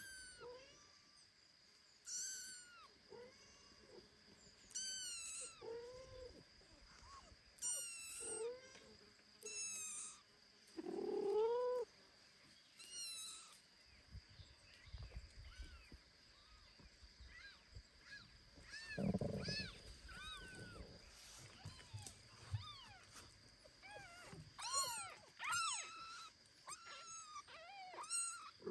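Young kitten mewing repeatedly, short high thin calls every second or two, with a louder, lower meow about eleven seconds in.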